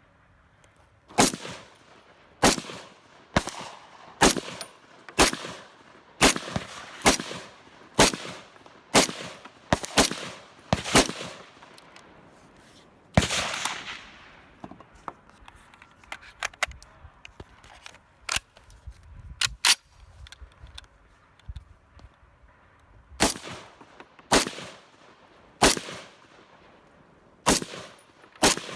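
Gunshots at a shooting range: a steady run of single shots about one a second, a louder shot with a longer ring a little after that, fainter distant cracks, then more shots near the end.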